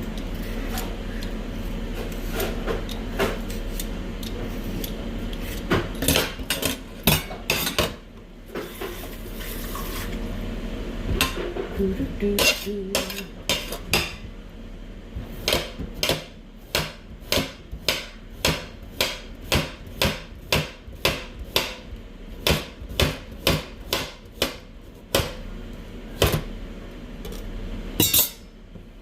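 A cucumber being peeled and then cut with a knife on a chopping board: scraping at first with a few knocks, then a long run of evenly spaced chops, about two a second, through the second half.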